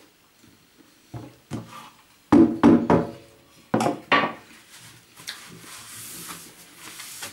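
Hard knocks and clatter of objects being handled, a couple about a second in, then a louder cluster between about two and four and a half seconds, some ringing briefly; then soft rustling.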